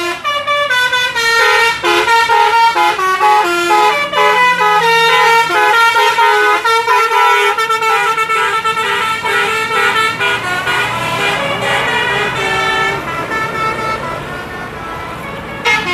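Indonesian 'telolet' bus horns playing a quick stepped melody, one loud horn note after another with no break.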